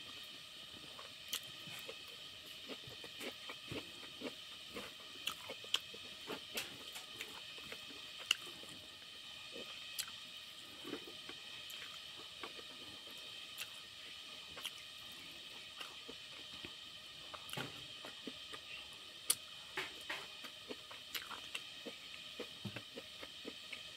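Eating rice by hand from a steel plate: fingers squishing and mixing rice and curry, with chewing and scattered small clicks and taps, over a steady faint high hiss.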